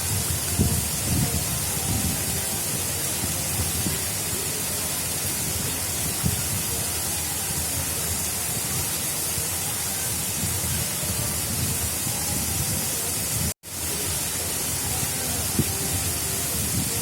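Water of an artificial river rushing steadily, a dense even hiss, with irregular low rumbles underneath. The sound drops out for an instant about three-quarters of the way through.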